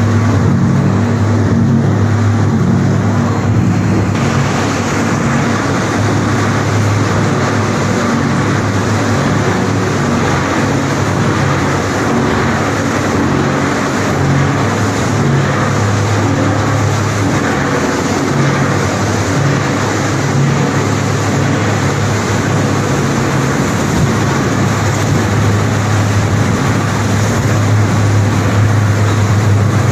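Plastic film recycling washing line running: heavy machinery with a steady low hum and a broad rushing noise over it, which grows fuller about four seconds in.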